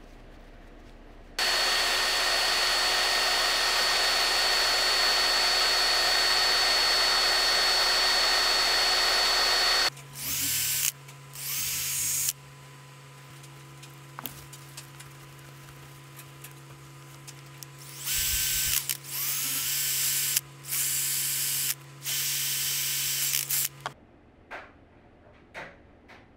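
A small electric power tool running: one long steady run of about eight seconds, then several shorter runs that each rise in pitch as they spin up, with a low steady hum between them.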